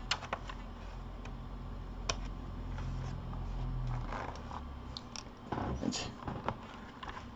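Scattered clicks and short scrapes from handling small tools and the plastic case of a laptop being readied for prying open, over a low hum that drops away about four seconds in.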